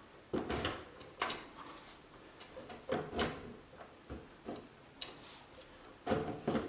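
Marshall JVM410 amp chassis being slid back into its head cabinet: a run of short scrapes and knocks, with a quick cluster of them near the end.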